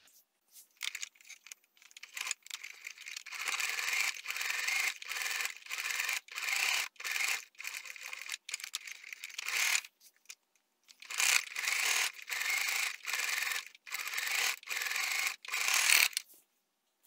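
Electric sewing machine stitching, running in two long stretches with a short stop about ten seconds in.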